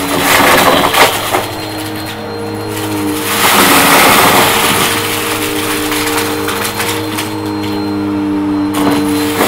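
Bissell CleanView upright bagless vacuum running steadily over a shag rug while it sucks up crunchy debris and bottle caps, which crackle and rattle up into the clear dust cup. The crunching is loudest in the first second and again for a longer spell a few seconds in.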